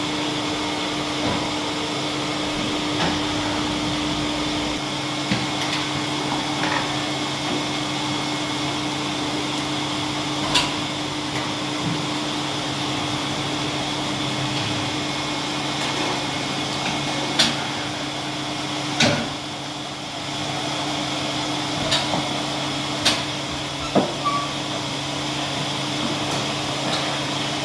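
Polar 155 X guillotine paper cutter and its Transomat unloader running, with a steady machine hum. Sharp clanks and knocks come every few seconds, several of them in the second half, as the unloader handles the paper stack.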